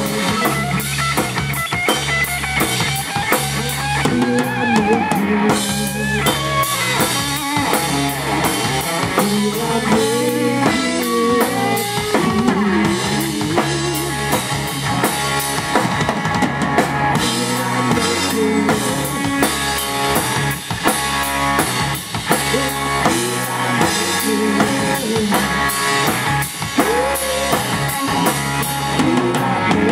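Live rock band playing an instrumental passage: electric guitar playing a lead line with bending, wavering notes over a drum kit and bass guitar.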